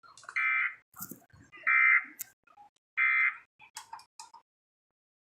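Emergency Alert System end-of-message tones: three short bursts of buzzy SAME digital data tones, about 1.3 s apart, signalling the end of the alert message. Faint clicks and crackle sit between and after the bursts.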